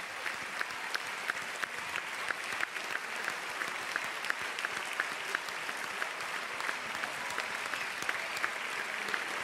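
Audience applauding, with clapping in a steady beat of about three claps a second running through the general applause.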